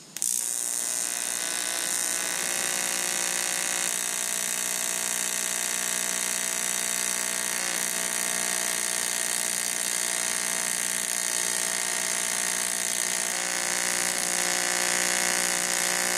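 AC TIG welding arc from a Lincoln Electric Aspect 230 on cast aluminum, running with its automatic frequency setting at nearly full pedal: a steady buzz with a high hiss, struck right at the start. Its tone shifts slightly a couple of times along the bead.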